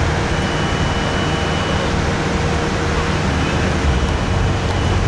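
Steady outdoor noise: an even low rumble with hiss above it, holding at one level throughout.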